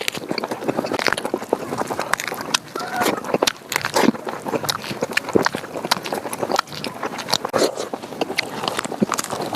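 Close-miked eating sounds of a person eating chicken with rice: wet chewing and rapid, irregular lip-smacking clicks.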